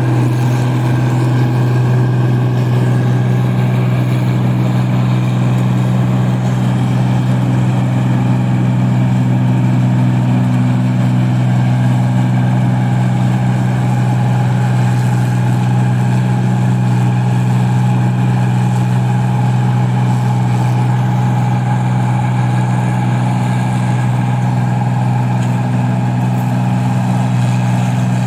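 Engine of a rice combine harvester running at a steady, unchanging speed with a constant low hum.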